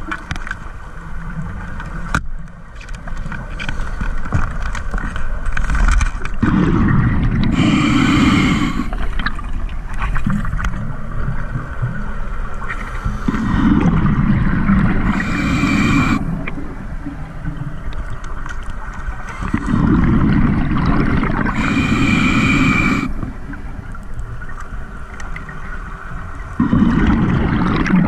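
Scuba diver breathing through a regulator underwater: exhaled bubbles rush and gurgle out in long bursts about every seven seconds, four times, with quieter stretches between breaths.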